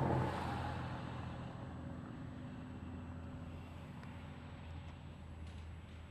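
Low, steady rumble of distant road traffic, briefly louder at the very start.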